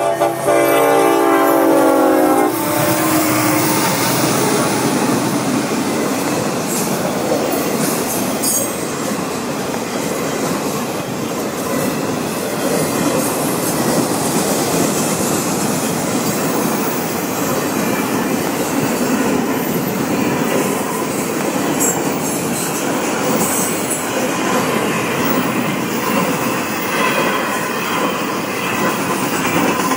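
A Florida East Coast Railway freight train passing close by: the lead locomotive's horn sounds a chord that ends about two and a half seconds in. Then the long train of autorack and container cars rolls past, with steady wheel-on-rail noise and a few sharp clanks.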